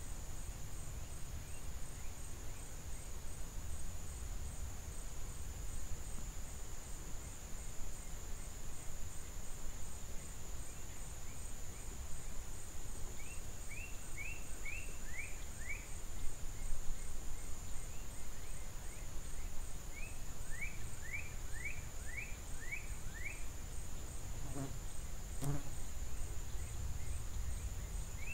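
Outdoor ambience: a steady high-pitched drone of insects over a low wind rumble. Twice in the middle, a bird sings a quick run of short falling chirps. Two soft knocks come shortly before the end.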